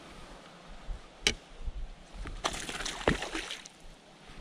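A cast with a baitcasting rod and reel: a sharp click, then about a second of noisy whirring as the spool pays out line, with a sharp tap partway through.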